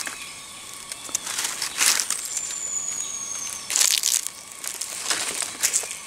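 Crunching of dry leaf litter under slow footsteps, a few separate crunches a second or more apart. A thin high whistle, falling slightly, runs for about a second and a half in the middle.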